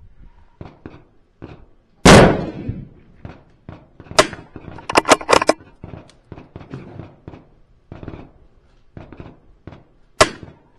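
A single .22 LR rifle shot about two seconds in, the loudest sound, trailing off over about half a second. It is followed by clusters of sharp clicks from the rifle's action being worked for the next round, with another click near the end.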